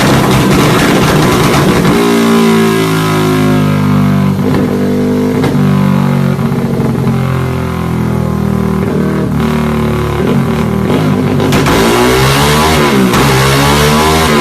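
Yamaha Y15ZR's 150 cc single-cylinder engine with an aftermarket exhaust, revving, with quick rises and falls in pitch near the end. Background music plays alongside.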